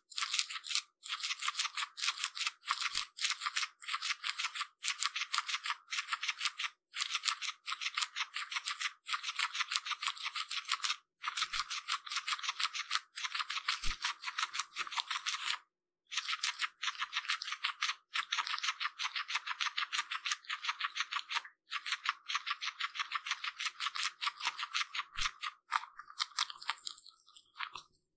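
A guinea pig chewing fresh grass stalks close to the microphone: a fast, steady run of crisp crunching bites. It pauses briefly every few seconds and thins out near the end.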